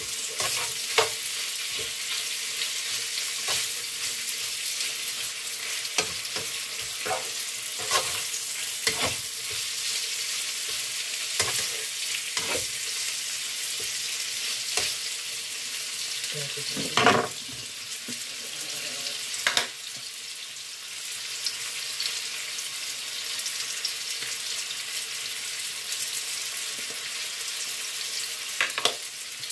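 Sausage and ham frying in a pan on a gas stove: a steady sizzle, with the spatula scraping and tapping against the pan every second or two and one louder knock a little over halfway.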